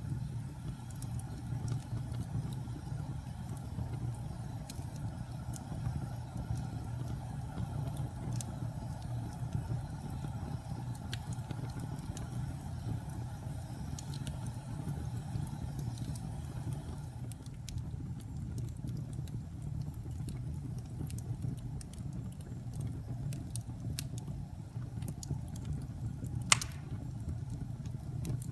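Fire burning with a steady low rumble of flames and scattered sharp crackles and pops, one louder pop near the end.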